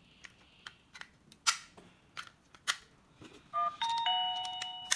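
Several sharp clicks as the plastic push button is handled, then about three and a half seconds in the wireless doorbell receiver sounds its electronic chime: a few bright notes that ring and slowly fade, struck again just before the end.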